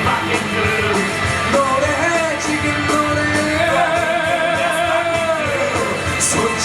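Live rock-style musical theatre number: a singer over a full band, holding one long note about halfway through.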